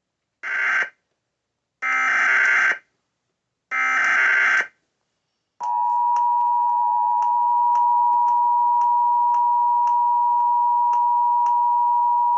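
Emergency Alert System header: three short bursts of warbling digital data tones, each about a second apart. Then the EAS two-tone attention signal sounds, a steady dual-pitch tone held for about eight seconds, announcing a severe thunderstorm warning.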